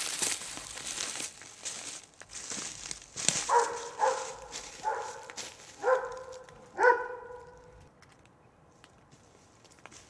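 Footsteps crunching along the trail, then a dog barking five times in quick succession over about four seconds.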